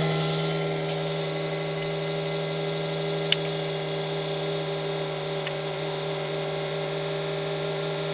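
Fresh-food drawer fan assembly of a GE PFE29PSDCSS refrigerator running with a steady, pitched hum, the fault noise this fan assembly develops. The hum eases slightly in the first second, and a single sharp click comes about three seconds in.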